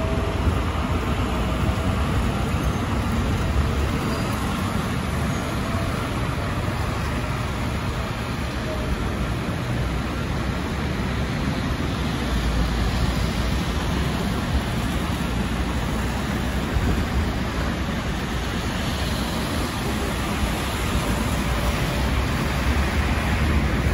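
Street traffic with city buses and cars passing: a steady engine rumble and tyre hiss on a wet, slushy road.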